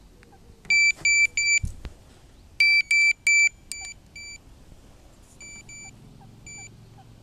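Electronic carp bite alarm giving short beeps of one steady pitch: three loud beeps about a second in and four more about two and a half seconds in, while it is set. From about five seconds in the beeps are softer, the alarm turned down to a quiet tone. A dull thump comes just before two seconds.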